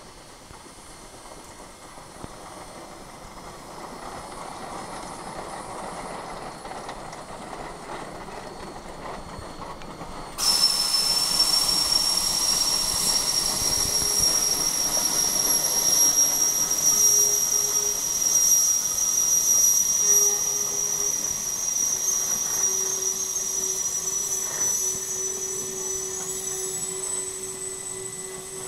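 Three-cylinder Shay geared steam locomotive No. 6 working past at close range, its running noise building as it nears. About a third of the way in, a loud high-pitched steam hiss starts suddenly and holds, creeping slowly up in pitch and easing off as the passenger cars roll by. A lower steady tone joins in the second half.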